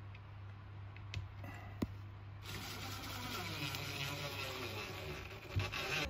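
Two faint knocks as a wooden railing board is handled, over a low steady hum. A broader background noise comes up about two and a half seconds in.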